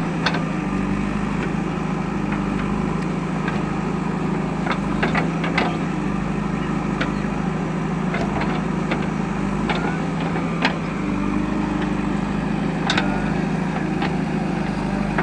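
Heavy diesel engine running steadily at a constant speed, with scattered sharp knocks and clicks at irregular moments.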